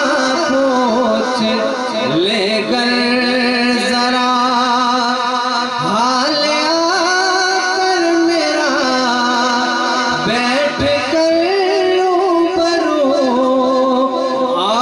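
A man singing a naat through a microphone and PA, drawing out long held and melismatic notes with no clear words.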